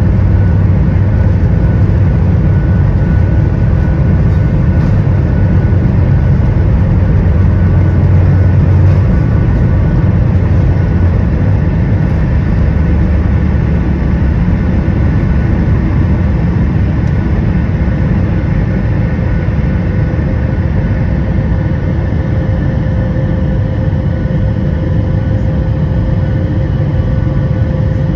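Inside the cabin of a Boeing 737 MAX 8 during takeoff: its CFM LEAP-1B engines run at takeoff thrust under a heavy rumble from the runway roll. The low rumble eases in the second half as the aircraft lifts off and climbs, while a steady engine tone stays on top.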